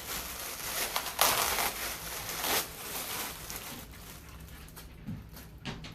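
Packaging rustling and crinkling as a costume mask is unwrapped by hand, loudest in the first half and settling to a few light clicks and rustles near the end.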